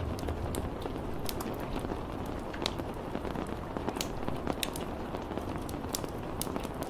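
Steady rainfall, with individual drops ticking sharply and irregularly on a nearby surface.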